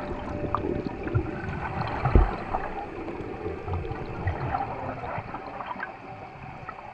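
Sea water sloshing and bubbling around a camera at the sea surface, with a few dull knocks, the loudest about two seconds in.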